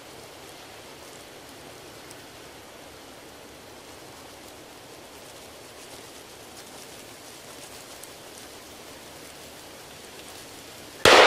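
Steady faint hiss of the woods, then near the end a single loud gunshot fired by a nearby stander at a buck flushed out by the hounds, echoing as it fades. The shot missed.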